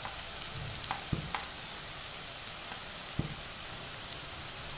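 Cauliflower, onion and green-chilli masala frying in oil in a steel kadai: a steady, even sizzle, with a few faint light taps.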